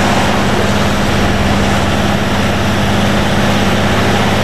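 Fire appliance engine running steadily and driving its fire pump, which supplies the hose jets, with a low hum under a broad rushing noise.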